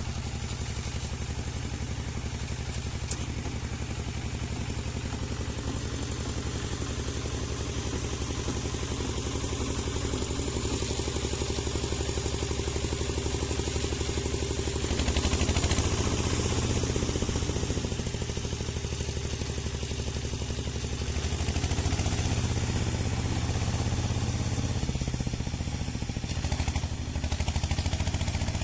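Walk-behind tractor engine running steadily while driving a rotary tiller. It swells louder for a couple of seconds about halfway through and again near the end.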